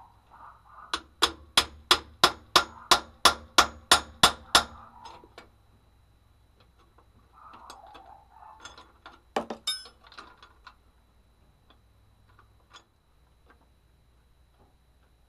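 A quick run of about a dozen sharp metallic taps, roughly three a second, from work on the clamp band of a truck's air spring brake chamber. Scattered fainter clicks follow, and a single louder clank with a short ring comes about nine seconds in.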